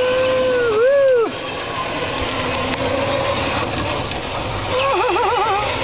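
A drawn-out voice call held for about a second at the start, then a wavering, warbling voice call near the end. Both sit over the steady running noise of a child's electric ride-on car turning doughnuts.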